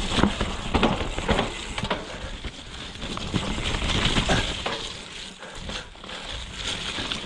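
Mountain bike riding through a wet, muddy trail: steady tyre and trail noise with frequent short knocks and rattles of the bike, easing off briefly a little past the middle.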